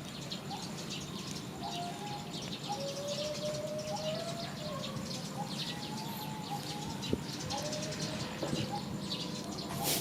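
Small birds chirping over and over, with faint, thin, drawn-out whistle-like calls running underneath.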